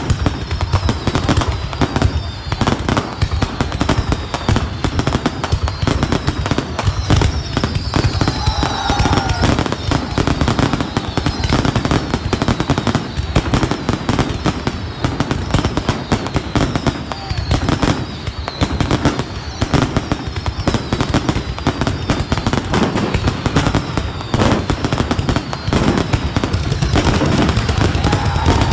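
Fireworks display going off in a dense, continuous barrage of bangs and crackles.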